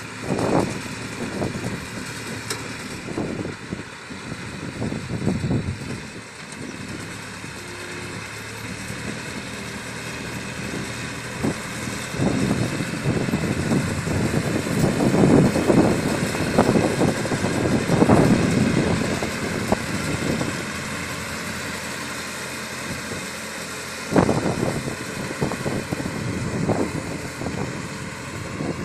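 Tractor engine running steadily as it pulls and drives a small PTO-driven round hay baler across a field, with irregular louder low rushes now and then.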